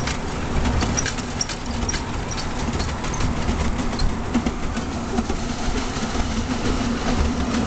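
Miniature ride-on train running along its track: a steady low rumble and hum, with light clicks from the wheels on the rails in the first few seconds.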